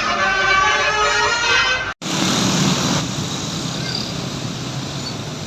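A bus's telolet musical air horn playing a multi-note melody, cut off abruptly about two seconds in. Road traffic noise follows.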